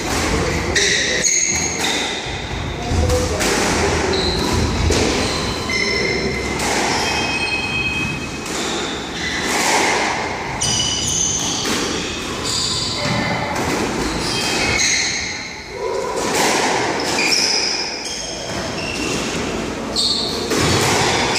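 Squash play: the ball knocking off rackets, walls and the glass back wall in repeated sharp thuds, mixed with short high squeaks of court shoes on the wooden floor.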